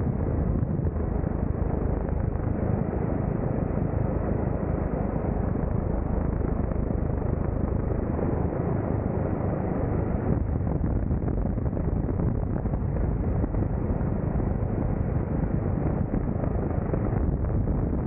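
Helicopter hovering low over the sea, its rotor and engine making a steady, loud noise as heard from just outside the cabin by the skid.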